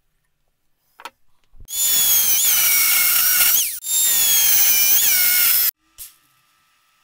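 Electric chop saw cutting steel bracket stock, in two long runs with a brief break just before four seconds in. A high motor whine sits over the cutting noise, sagging and briefly rising a few times as the blade is fed into the metal.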